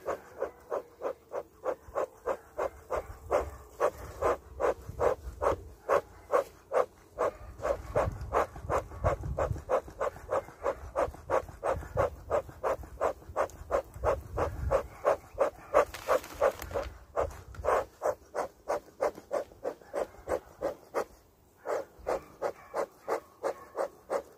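Bee smoker bellows pumped by hand in a steady rhythm, about two to three short puffs of air a second, with a brief pause near the end. The pumping drives air through the smouldering fuel to stoke it until flames burst out.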